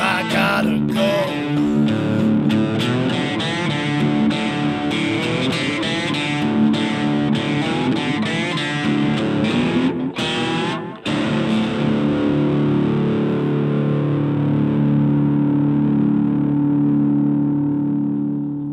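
Cigar box guitar playing an instrumental outro: a busy run of picked notes, two brief breaks about ten seconds in, then a final chord left ringing and fading out near the end.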